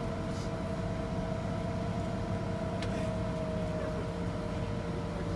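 School bus running, heard inside the passenger cabin: a steady low rumble with a held whine that sinks slightly in pitch over a few seconds.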